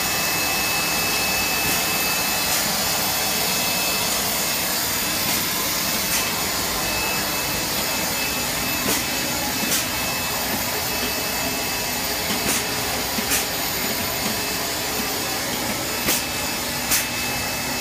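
Air bubble film making machine running: a steady, loud rushing mechanical noise, with a thin steady whine in the first half and scattered sharp clicks, more of them in the second half.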